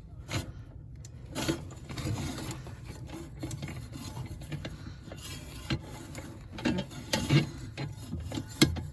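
Rubbing and scraping with scattered sharp clicks of metal parts being handled, as a replacement shear pin is worked into a snowblower's auger shaft and the auger is turned until the pin catches. The clicks come irregularly, a few louder ones near the end.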